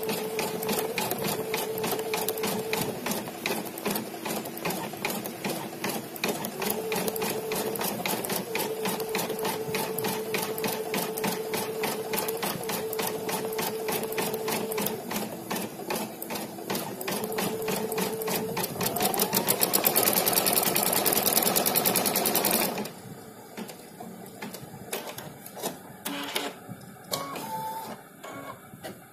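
Brother V3 embroidery machine stitching out a design: a rapid, even clatter of needle strokes over a motor hum that shifts pitch as the hoop moves. Near the end the hum rises and the stitching speeds up and gets louder, then stops suddenly, leaving quieter clicks and a few short tones.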